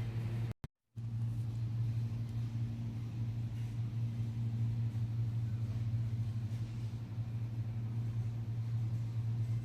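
Steady low mechanical hum, like ventilation or machinery, broken off by a short silent gap under a second in.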